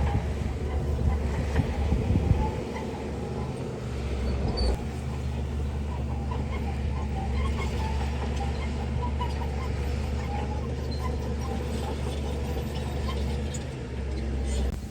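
Heavy earthmoving machine's diesel engine running steadily, with a louder clatter about two seconds in.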